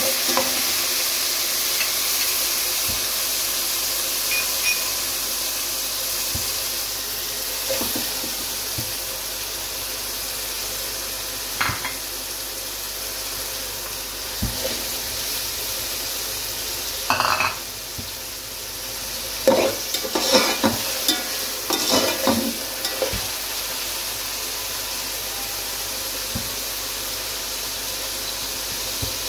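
Food frying in hot oil in a pan, with a steady sizzle. A utensil stirs the food, scraping and knocking against the pan, loudest in a cluster about two-thirds of the way through.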